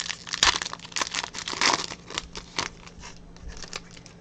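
Baseball trading cards being handled and slid over one another, a quick run of crinkling, rasping strokes.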